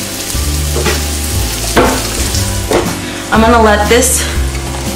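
Chicken pieces sizzling as they fry in oil in a pan, with a few short stirring or scraping sounds.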